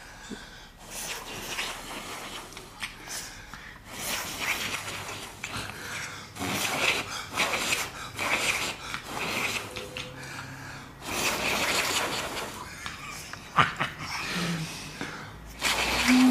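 A dog breathing noisily through its nose, in a series of rough breaths, each a second or two long.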